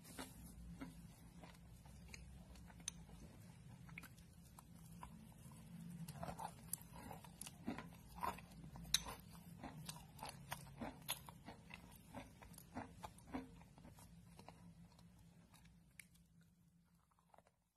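Faint, close-up chewing and crunching of chalk porridge (crushed chalk mixed with water), with many small wet clicks and crunches. The bites are thickest in the middle and die away near the end.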